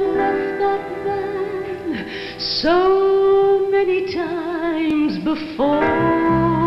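A female operatic singer sings long held notes with a wide vibrato over musical accompaniment, starting a new phrase about every two to three seconds.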